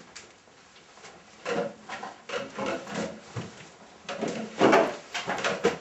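Wooden knocks and rubbing from a cupboard being handled: a series of irregular bangs and scrapes, the loudest about three-quarters of the way through.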